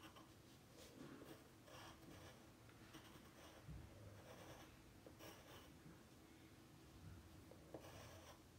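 Faint, irregular scratching of drawing strokes on paper as a foot is drawn.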